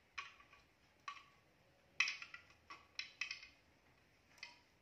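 Hard plastic toy fishing rods and a plastic toy fish clacking together in a string of short, irregular clicks and taps, the loudest about two seconds in.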